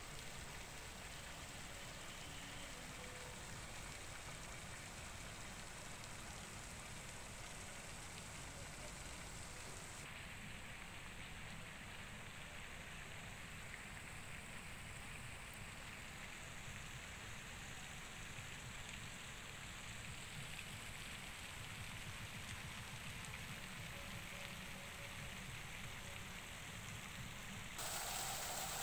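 Faint, steady outdoor background hiss with no distinct events, its tone shifting about ten seconds in and again just before the end, where it gets slightly louder.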